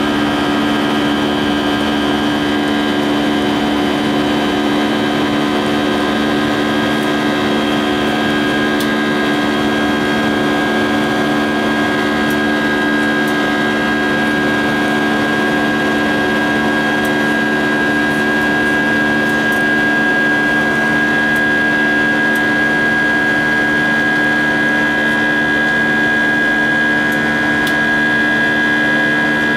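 Airbus A320's IAE V2500 turbofan engines at climb power, heard from inside the cabin: a loud, steady roar with a low drone and a high whine held throughout.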